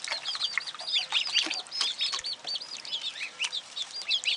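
Ducklings about ten days old peeping constantly in rapid, high arching calls, with a few splashes as they paddle and scramble in a shallow tub of water.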